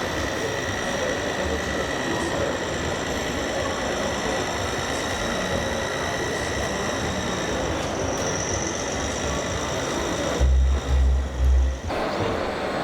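Small electric motors of radio-controlled model construction vehicles whining steadily over a constant din of exhibition-hall noise, the whine moving higher in pitch about eight seconds in. Three heavy low thumps come near the end.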